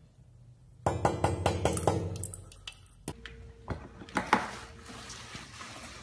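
A quick run of sharp clinks and taps of hard objects starting about a second in, followed by a few scattered louder knocks, with a faint steady tone in the middle.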